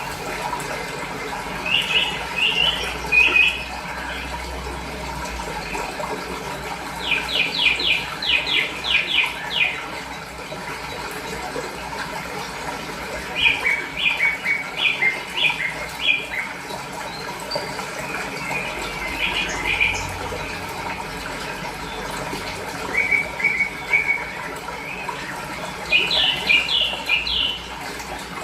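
Small songbird singing short phrases of quick repeated chirping notes every few seconds, over a steady rush of flowing water.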